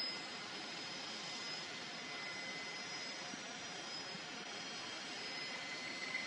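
Jet aircraft engines running steadily: a continuous rushing noise with a faint high whine.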